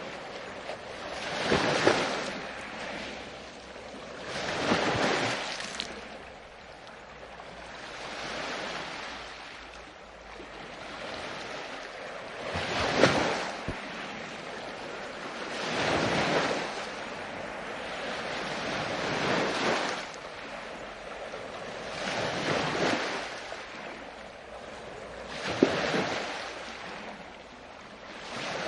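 Ocean surf: waves breaking and washing in, each swelling up and falling away, about one every three to four seconds.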